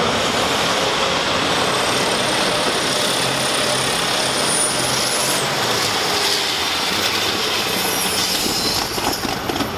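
Modified pulling tractor's engine running flat out under load during a pull, a dense loud roar. A high whine rises in pitch for several seconds and then drops away about halfway through.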